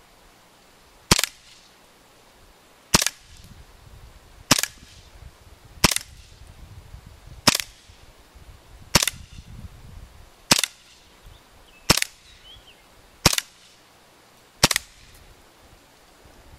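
WE TT-33 Tokarev gas blowback airsoft pistol on propane, fired ten single shots about one every second and a half. Each shot is a sharp crack with the slide cycling.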